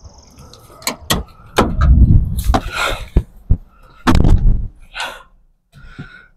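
A person climbing into a car: a series of sharp clicks and knocks, rough rustling and handling noise, and a heavy thump about four seconds in as the car door shuts.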